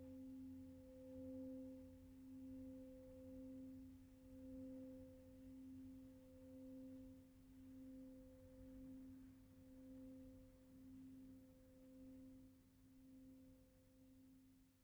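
Large singing bowl ringing on after a strike: a low, steady hum with higher overtones, wavering in loudness about every second and a half and slowly fading.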